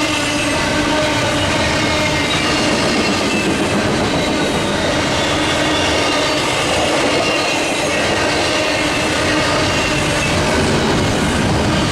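Intermodal freight train rolling past at speed: the steady rush and clatter of its wheels over the rails, with faint high squealing tones from the wheels.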